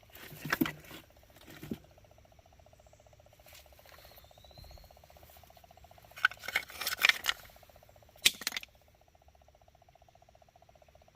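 A fast, steady mystery tapping at one even pitch, heard at a rock in a nearly dry river valley, with no source identified. It is interrupted by bursts of louder clattering knocks about half a second in, near two seconds, around six to seven seconds, and near eight and a half seconds.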